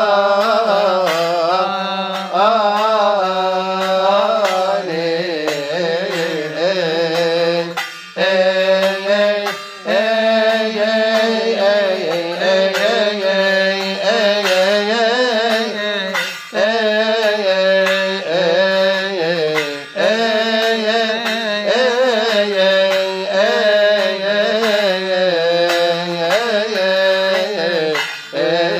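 Coptic Kiahk hymn chanted by voices to a steady beat of hand cymbals.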